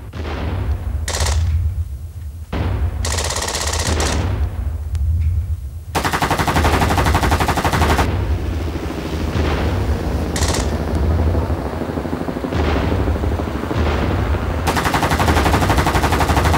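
Repeated bursts of machine-gun fire over a steady low rumble: short rapid volleys, the longest lasting about two seconds.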